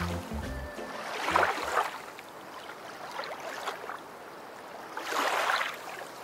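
The tail of the background music ends about a second in, leaving rushing water sounds that swell up and fade twice, once early and once near the end.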